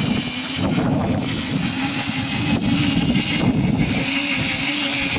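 Power Wheels ride-on toy car's battery-powered electric drive motors and plastic gearboxes running steadily with a constant drone as it drives through snow.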